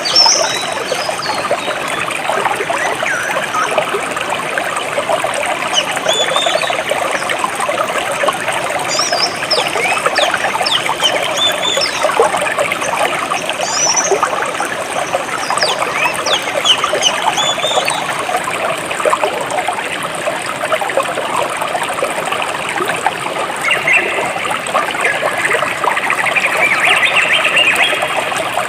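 A small jungle stream trickling and babbling steadily over rocks. Birds chirp now and then above it in short high calls.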